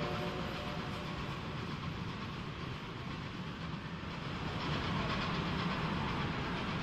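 Departing train of vintage passenger coaches rolling away, its wheels running steadily over the rails.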